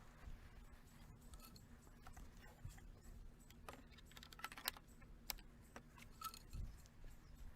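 Faint, irregular clicks and light knocks as composite raised-bed boards and plastic snap-lock stacking brackets are handled and fitted together.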